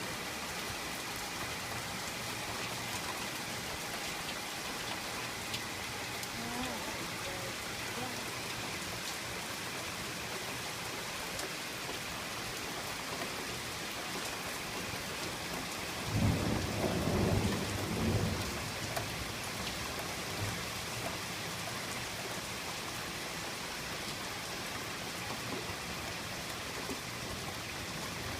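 Steady rain, with a rumble of thunder lasting about two seconds a little past halfway.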